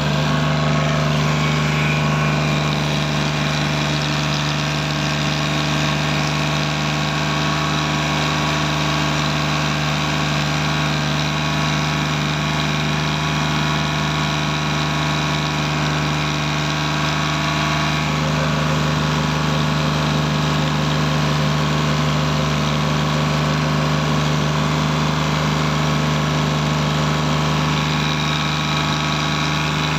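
Tractor's diesel engine running steadily while pulling a trolley loaded with sugarcane, heard from the driver's seat close to its upright exhaust.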